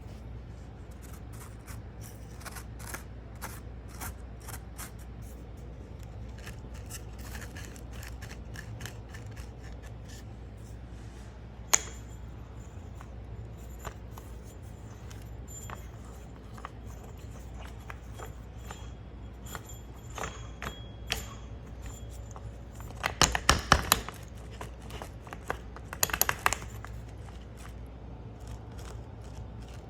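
Hand work on small metal parts: a run of light clicks and scrapes, one sharp knock about twelve seconds in, and two bursts of rapid metallic clatter near the end, over a steady low hum.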